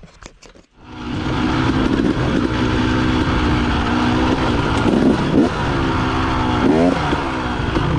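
KTM dirt bike engine running under the rider's throttle. It starts about a second in, after a few faint clicks, and its pitch rises and falls a couple of times with throttle changes.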